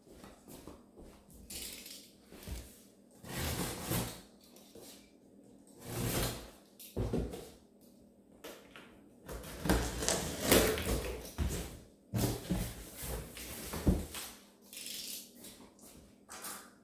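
Packing tape being peeled and ripped off the top of a cardboard box, and the box's flaps being pulled open: a series of irregular tearing and scraping noises with short pauses between them.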